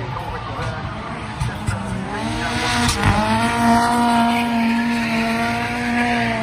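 Drift car sliding with its rear tyres spinning and smoking. Its engine climbs in revs about two seconds in, then holds at high, steady revs through the slide over the hiss of tyre noise.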